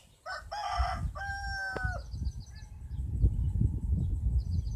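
A rooster crows once, a harsh start about half a second in that turns into a long held note ending near two seconds, with small birds chirping high and a low rumble underneath.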